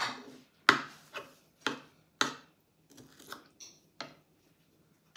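Metal spoon knocking and scraping against a skillet while scooping filling out of it: a series of sharp clinks about half a second apart, each with a short ring, growing fainter and sparser near the end.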